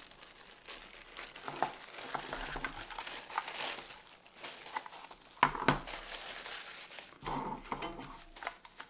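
Plastic packaging crinkling and rustling as a parcel is unwrapped by hand, with scattered light clicks and taps.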